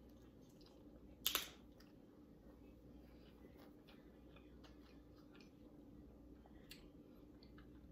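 Near silence of a small room, broken by one short, sharp crackle a little over a second in, with a few faint clicks after it.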